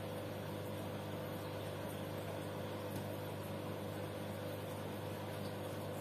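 Aquarium air pumps humming steadily, with a faint even hiss.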